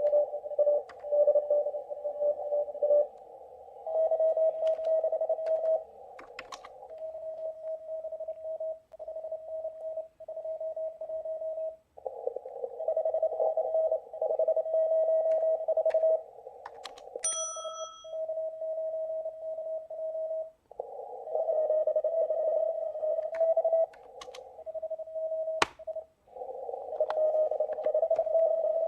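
Morse code (CW) signals from a ham radio receiver during a contest. Several stations key steady beeping tones of slightly different pitch, all at a moderate level, over band noise squeezed into a narrow filter. A few sharp clicks come through now and then.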